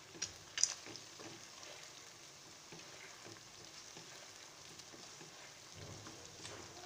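Mutton, onions and spice powders frying faintly in oil in a non-stick wok while a plastic slotted spatula stirs and scrapes through them. The spatula knocks sharply against the pan twice in the first second.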